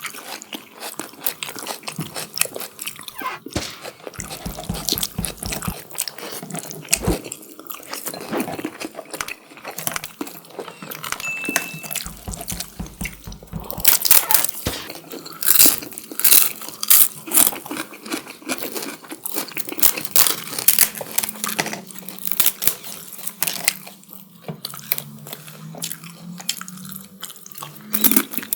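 Close-miked eating of chicken curry with biryani rice: chewing, wet mouth sounds and crunchy bites in quick succession, loudest in a run of sharp bites around the middle.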